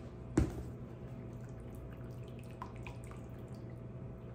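A single sharp knock about half a second in. Then a wire whisk stirs thick gravy in a stainless saucepan, with soft wet squelching and light clicks of the whisk against the pan, over a steady low hum.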